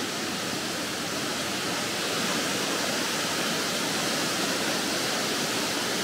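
A 32 m waterfall plunging into its pool close by: a steady, full rush of falling water.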